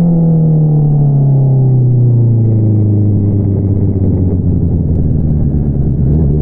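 2022 Honda CBR650R's inline-four engine through an Akrapovič single-outlet exhaust, its revs falling steadily as the throttle is rolled off, then running low and steady. The revs start to climb again right at the end.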